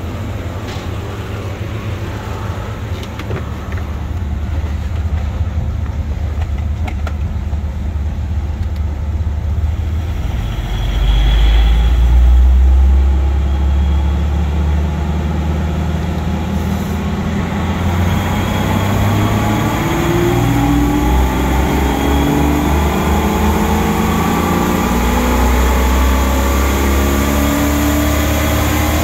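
Jeep Wrangler TJ's 4.0-litre inline-six running on a chassis dyno. During a dyno pull the engine note climbs steadily as the revs rise through the second half.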